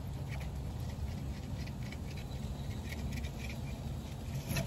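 Faint scraping and small ticks of a fillet knife working through a mahi as it is skinned and filleted, with a sharper click near the end, over a steady low hum.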